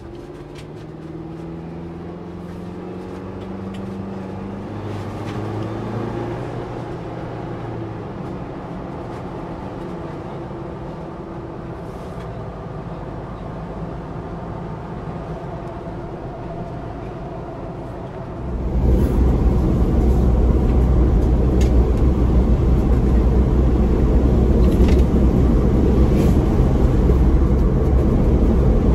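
Ford Bronco driving, heard from inside the cab: the engine note rises in pitch a couple of times as it accelerates, then settles into a steady drone. About eighteen seconds in, a much louder low rush of road and wind noise comes in suddenly and stays.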